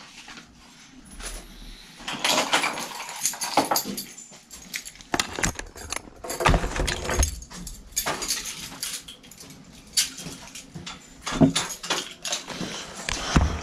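Irregular clattering and knocking of hard objects being handled and moved about, starting about two seconds in after a quiet start.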